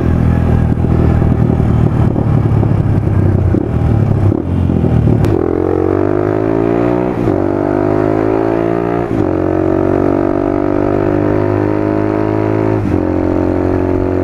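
Motorcycle engine under way, running rough and low for the first few seconds, then revving up with a rising pitch, shifting up twice about seven and nine seconds in, and then holding a steady note, with wind noise over it.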